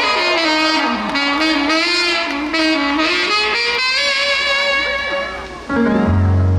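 Saxophone playing a gliding melodic fill over a trot-ballad band accompaniment in the break between sung lines. Near the end the sax fades and the band moves to a new chord with a strong bass note.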